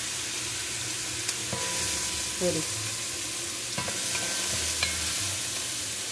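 Chopped onion, garlic and bell peppers sizzling steadily in hot olive oil in a metal pot as they are sautéed and stirred with a wooden spoon, with a few light knocks of the spoon against the pot.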